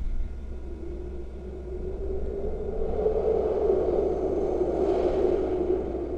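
Haunted-house sound-effect ambience: a low rumble under an eerie, hazy drone that swells louder from about two seconds in and eases off near the end.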